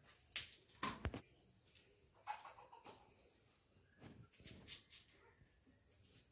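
Cauliflower being cut into florets with a small knife: faint, crisp snaps and clicks at irregular intervals.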